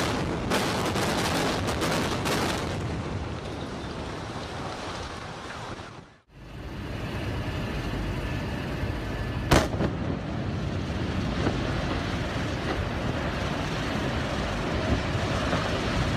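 Explosive building demolition: a rapid string of sharp cracks from the charges firing, then a steady rumble of the collapse. After a sudden cut, another steady rumble with one sharp crack about halfway through.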